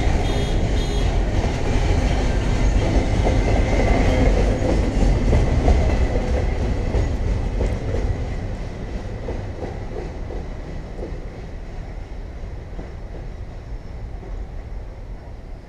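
Container cars of a double-stack intermodal freight train rolling past, with a low rumble and wheels clicking over the rail joints. The sound fades after about eight seconds as the end of the train goes by.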